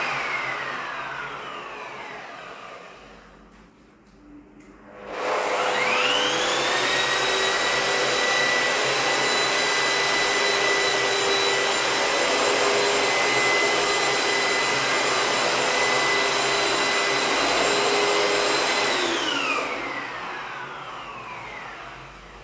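Electric Asian Paints wall putty sanding machine with its dust-extraction vacuum. At the start a short burst winds down and fades. About five seconds in it spins up to a steady whine over a loud rush of air, runs for about fourteen seconds, then winds down with falling pitch near the end.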